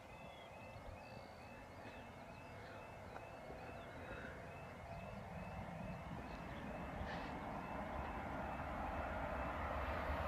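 Level crossing's electronic warbling alarm repeating rapidly while the barriers are down. The rumble of an approaching electric passenger train grows steadily louder, with faint birdsong.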